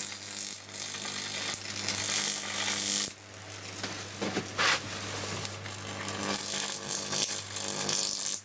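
A 10 kV neon sign transformer arcing: a steady electrical hum with irregular crackling over it, and a sharper flare about halfway through.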